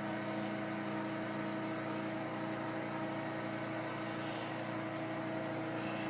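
Steady hum of running machinery, a generator and an electric water pump pumping rainwater through a hose, holding an even pitch with several constant tones.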